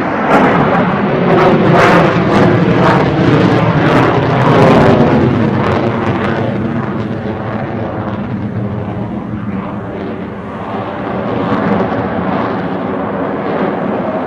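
Jet plane engine roar, loud through the first half and then slowly fading.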